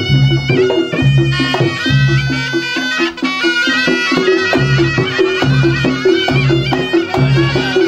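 Reog Ponorogo gamelan playing live: a slompret reed shawm carries a stepped, wavering melody over a steady, repeating beat of kendang drum and low gong tones.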